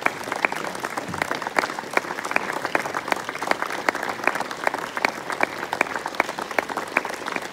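Audience applauding: a steady patter of hand claps, with single nearby claps standing out sharply over the general clapping.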